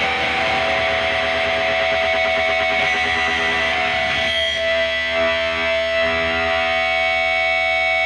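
Hardcore punk recording: distorted electric guitar through effects, holding steady ringing tones over a wash of noise.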